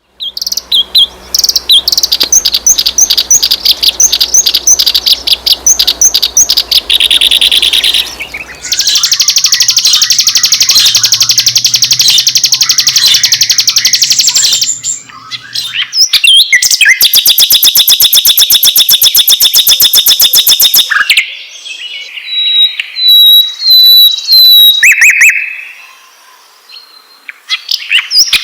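Songbird calls from a compilation of reed warbler, ciblek gunung (prinia) and sikatan londo (flycatcher) songs, loud and high-pitched. It opens with a series of evenly repeated chirps, then rapid buzzy trills from about 9 s and again from about 17 s. Near the end come short high whistled notes, and the song changes abruptly several times.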